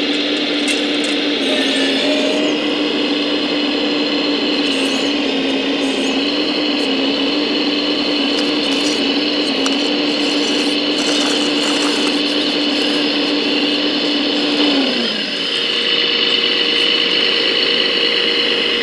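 Electric motor and pump whine of a radio-controlled Volvo model crawler excavator working its arm and bucket, steady and fairly loud. About fifteen seconds in the whine dips in pitch and shifts to a different, higher steady tone, with a few light clicks and scrapes of soil.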